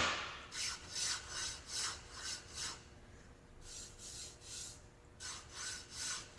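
Sandpaper rubbed by hand back and forth over a varnished wooden drawer panel, about two strokes a second in three short runs with brief pauses. The worn 120-grit sheet is taking the burrs off the dried varnish, so the stroke sound shows how rough or smooth the finish still is.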